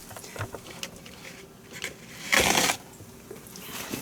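Handling noises as chicken packaging is cleared into the trash: light clicks and knocks, then a short, loud scrape about two and a half seconds in.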